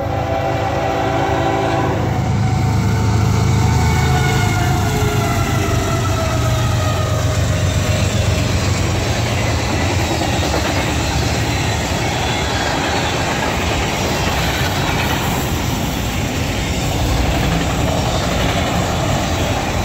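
A freight train's diesel locomotive passes with its horn sounding for about the first two seconds, its engine rumble falling away over the next few seconds. A long string of freight cars then rolls by with a steady, loud rolling rumble of wheels on rail.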